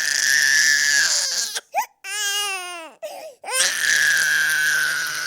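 A baby crying hard: two long, strained screaming wails with a shorter wavering cry between them, broken by quick gasping breaths.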